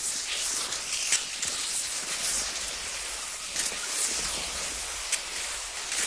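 Skis sliding over snow with a steady swishing hiss, broken by short, brighter scrapes of ski poles planted in the snow about once a second at an uneven pace.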